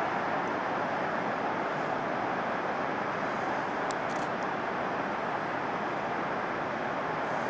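Waterfall: a steady, even rush of falling water that holds constant throughout.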